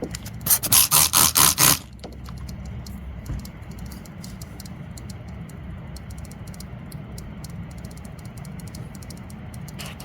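About six quick squirts from a trigger spray bottle of soapy water over a little more than a second, sprayed onto a leaking tyre. After them comes a steady low background rumble.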